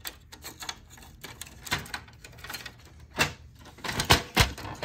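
Scattered plastic clicks and knocks as the HP Color Laser MFP 178nw's stuck top cover is worked loose and lifted. The sharpest knocks come in a cluster about three to four and a half seconds in.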